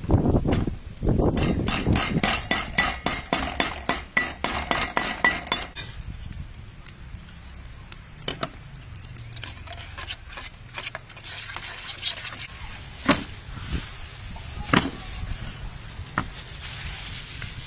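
Rapid knocking on a wooden board, about five strikes a second for several seconds, as black peppercorns are crushed. After that come scattered single clinks of a spoon against a stainless steel bowl.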